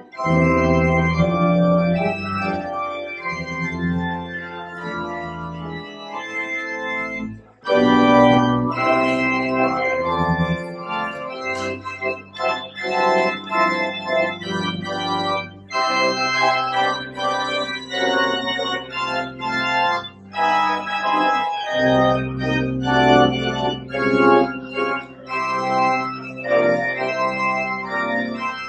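Organ playing a postlude after the benediction: sustained chords that change every few seconds over held bass notes, with a brief break about seven and a half seconds in.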